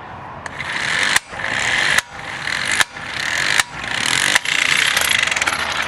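Kawasaki 12-volt cordless impact wrench running in reverse on a car lug nut: a motor whir broken by about five sharp impact blows, under a second apart, as the hammer mechanism knocks the nut loose.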